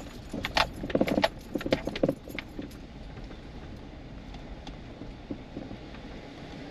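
Off-road vehicle driving slowly down a rough sandy forest track, heard from inside the cab: a quick run of rattles and knocks as it jolts over the ruts, settling about three seconds in to a steady low rumble of the drive.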